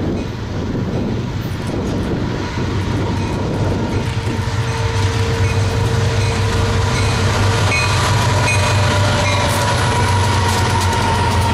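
Diesel freight train approaching and passing at speed. The locomotive's low engine drone grows steadily louder, a steady tone comes in about four seconds in, and wheels clack on the rail joints as the locomotive and cars go by near the end.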